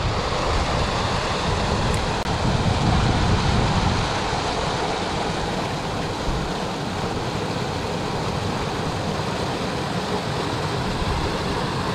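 Small waterfall pouring into a rock pool: a steady rush of water.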